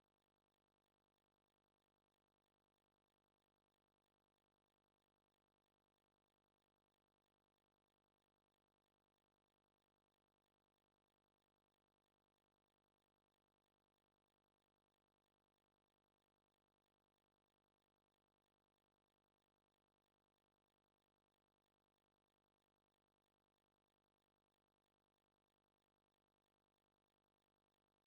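Near silence: no audible sound, only a faint steady noise floor.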